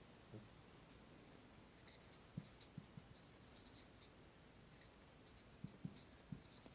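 Faint scratching of a marker writing on a sheet, in two short spells, with a few light taps as the tip touches down.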